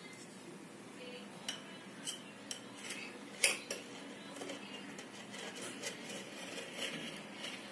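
A knife cutting through soft khaman dhokla in a stainless-steel steamer plate. The blade clicks and scrapes against the steel in a run of sharp taps, the loudest about three and a half seconds in, then softer scraping.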